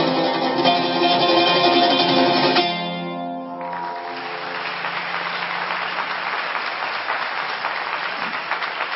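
Oud playing the closing notes of a piece, which stop about three seconds in with the last notes ringing out briefly. Then an audience applauds.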